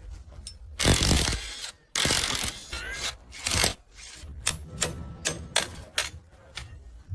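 Mechanical rattling and ratcheting clicks over a low hum: three loud scraping bursts in the first few seconds, then a run of sharp clicks.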